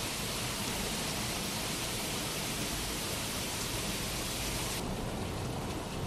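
Outdoor hot tub jets churning the water: a steady rushing hiss of bubbling water, which turns duller about five seconds in.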